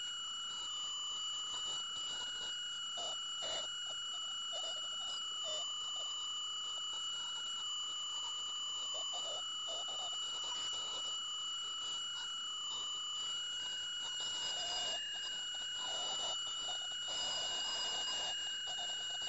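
PerioScan ultrasonic dental scaler running, its tip working a tooth root surface in water: a steady high whine with a second, higher tone, and a lower tone that wavers up and down as the tip moves, over faint scratchy crackles.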